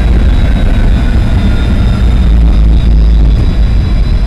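Tram running along the track, heard from inside: a loud, steady low rumble with a faint whine that falls slightly in pitch.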